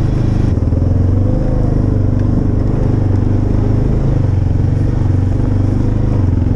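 Vehicle engine running steadily at a constant low speed while driving along a rough forest track.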